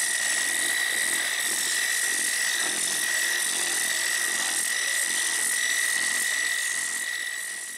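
Random orbital sander with a 180-grit disc running steadily against a motorcycle helmet's clear-coated shell, a constant high whine over hiss. It winds down and stops near the end.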